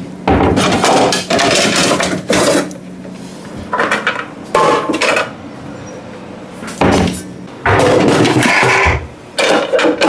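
Groceries being handled on a kitchen counter: rustling and clattering in irregular bursts over a steady low hum that stops about three-quarters of the way through.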